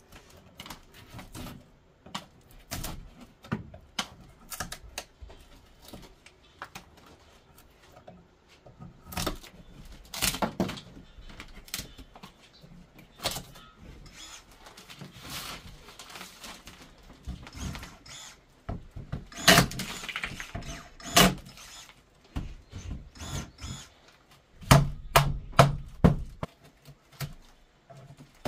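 Rotten wood being picked, broken and scraped off a log wall by hand: scattered knocks, cracks and scraping, with louder clusters of thunks past the middle and again near the end.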